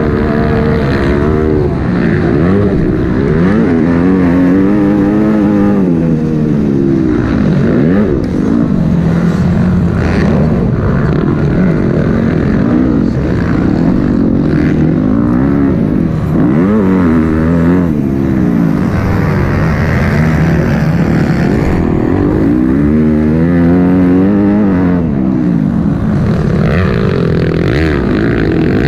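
Yamaha motocross bike engine under race throttle, its pitch climbing and dropping again and again as the throttle is opened and shut through the corners and jumps of a dirt track.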